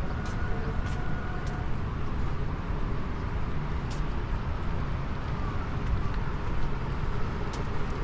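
Steady city traffic noise: a continuous low rumble of road vehicles, with a few faint ticks.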